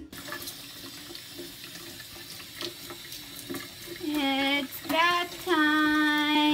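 Kitchen faucet sprayer running water into the sink over a puppy being bathed. About four seconds in, a pitched vocal cry sounds three times, the last one drawn out for over a second.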